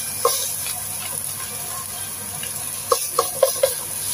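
Shallots and tomato paste sizzling gently in a nonstick wok while a spatula and chopsticks stir and scrape through them. There is a sharp knock against the pan early on and a quick run of four knocks near the end.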